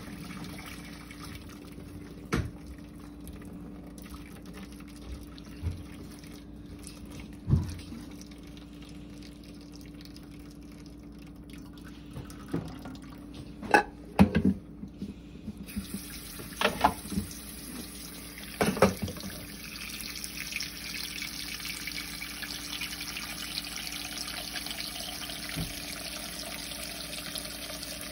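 Stainless steel pot of boiled eggs clanking several times in a steel sink, then a kitchen tap running water into the pot over the eggs from about halfway on, cooling them.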